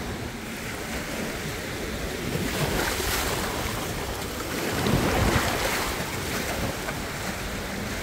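Surf washing onto a sandy beach, with wind on the microphone. The wash swells louder twice, about three and five seconds in.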